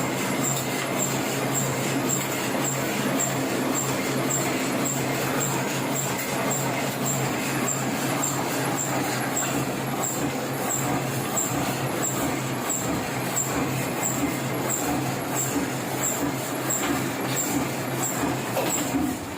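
Heidelberg offset printing press running steadily: a dense mechanical clatter over a steady hum, with a light, regular tick about one and a half times a second.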